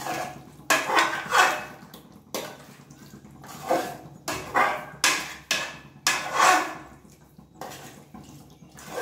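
Metal spoon scraping against the sides of a pressure cooker pot and stirring raw chicken through a thick, wet masala, in irregular strokes about once a second.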